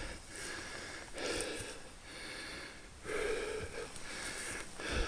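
A man breathing heavily close to the microphone, several audible breaths about a second apart.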